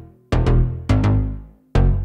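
Background music: an electronic track of sharp percussive hits, each followed by a deep bass tone that fades away.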